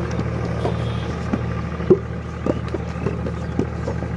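A steady low machine-like drone, with a few sharp knocks and clunks from a wooden two-wheeled handcart of wet clay being wheeled and tipped out.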